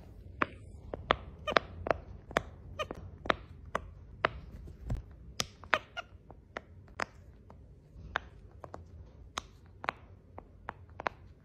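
A series of sharp clicks or taps, irregular, about two or three a second, over a faint low rumble.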